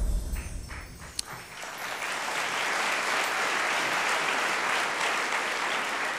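Audience applause that swells up about a second and a half in, after the previous sound fades, and then holds steady.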